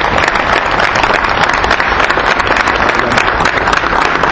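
A crowd clapping steadily, a dense patter of many hands.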